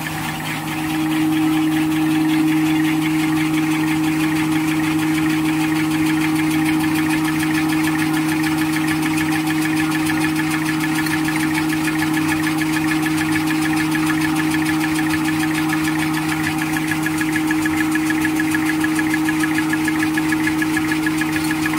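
A three-line V-fold hand towel paper folding machine running steadily: a continuous mechanical hum with a fast, even chatter from the folding rolls. It grows louder about a second in.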